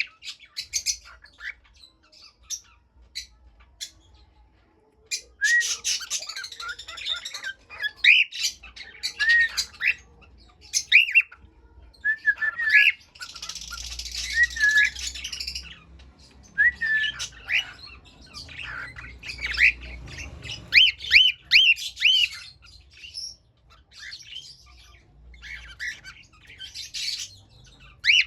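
Cockatiel chirps and short whistled notes mixed with harsh squawks, coming in irregular bursts. About a second in it goes nearly quiet for some four seconds.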